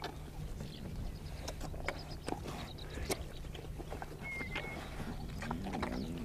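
Lionesses and cubs feeding on a fresh kill: scattered faint crunches and clicks of tearing and chewing. A short two-note bird whistle comes in about four and a half seconds in, and a low sound that rises and falls starts near the end.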